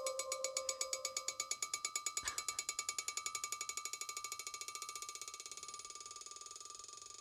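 Steel ball bearing bouncing on the freshly resurfaced face of a 100-year-old Kohlswa anvil: a long run of sharp clicks that come quicker and fainter as the bounce dies down, over a steady ring. The long-lasting bounce is the test of how hard and dense the anvil's steel is. One duller knock about two seconds in.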